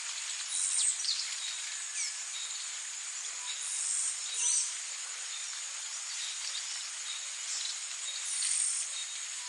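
Tropical forest ambience: a steady, high-pitched insect drone, with birds calling over it in short downward-sliding whistles several times.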